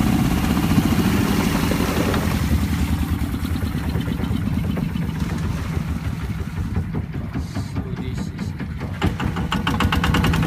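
Long-tail boat's engine running under way with a steady low drone. It eases off somewhat in the middle and picks up again near the end.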